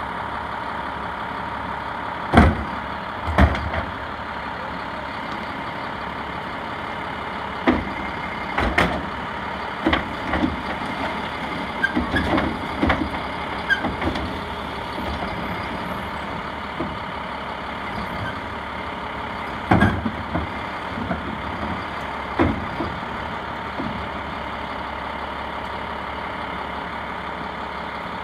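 Automated side-loader recycling truck with its engine running steadily, as its hydraulic arm grips a wheeled plastic recycling cart, lifts and tips it into the hopper, and sets it back down. Sharp knocks and bangs come from the arm clamping and shaking the cart, loudest about two seconds in and again around twenty seconds.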